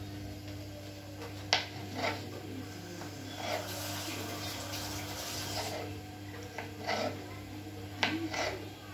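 Kitchen knife chopping carrot on a wooden cutting board: slow, irregular knocks of the blade on the board, the sharpest about a second and a half in. A steady low hum runs underneath.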